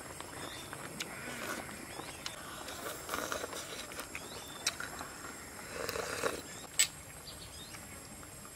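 Slurping and eating noodle soup from bowls with chopsticks, in soft bursts, with a few sharp clicks of chopsticks or tableware, the loudest near the end.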